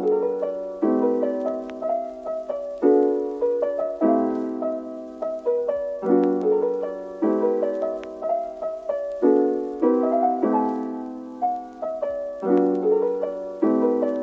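Background piano music: a gentle tune of chords struck about once a second, each fading away.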